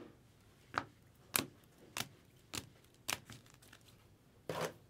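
Sleeved trading cards being handled, plastic on plastic: a row of short sharp clicks about every half second, then a longer rustle near the end.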